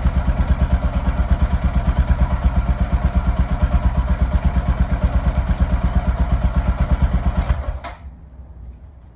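2014 Suzuki DR650's single-cylinder four-stroke engine idling through a Yoshimura muffler on the stock header pipe, a steady pulsing exhaust beat that stops abruptly near the end.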